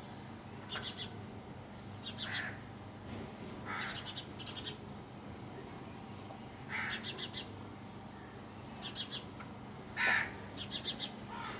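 Birds calling in short bursts of quick repeated notes every second or two, the loudest burst near the end, over a faint steady low hum.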